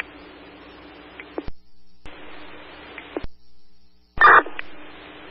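Radio scanner static: an open channel hissing with a faint steady hum between transmissions. It cuts off dead with a click twice, and a short loud burst of a keyed-up transmission comes in about four seconds in.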